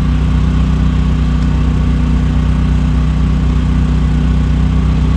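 Small petrol generator running steadily, an unchanging engine hum.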